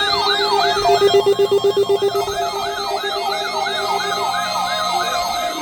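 Layered electronic siren tones sweeping up and down, about three sweeps a second, over steady tones, sounding as the alert for a weekly weather-radio warning test.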